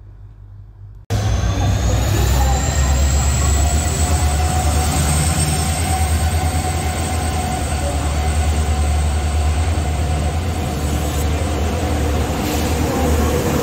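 Passenger train running on the rails: a steady, loud low rumble with a fast fine clatter and a faint high whine, starting suddenly about a second in.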